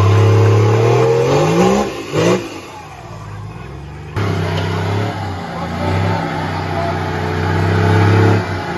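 Off-road challenge truck's engine revving hard under load as it climbs a steep muddy slope, the pitch rising and then falling away about two and a half seconds in. After a sudden cut about four seconds in, the engine is loud again, its revs rising and falling as the truck works through deep mud.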